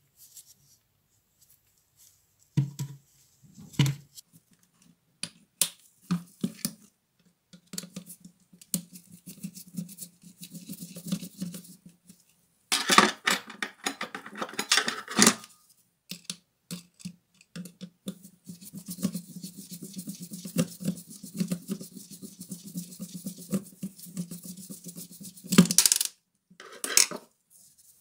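Clicks, knocks and scraping of hard plastic and metal parts as the dismantled Bosch GWS 7-125 angle grinder's housing and switch assembly are handled, with two longer stretches of rapid rasping scrapes. The loudest clatters come about halfway through and again near the end.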